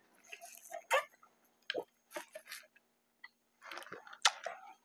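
Soda being sipped through a straw from a paper cup with ice: a string of short slurps, swallows and small clicks, then a longer slurp near the end.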